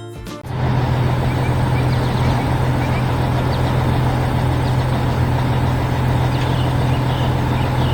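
A heavy construction vehicle's engine running: a steady low rumble that comes in abruptly about half a second in and holds.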